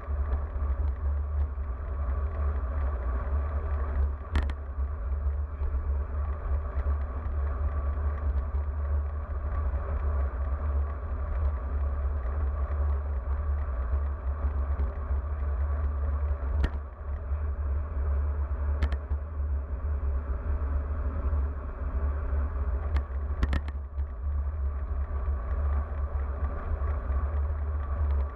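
Wind rumbling over the microphone of a bike-mounted action camera, with steady road and tyre noise as the road bike rolls along pavement. A few sharp clicks stand out, about four seconds in, twice between sixteen and nineteen seconds, and a quick cluster around twenty-three seconds.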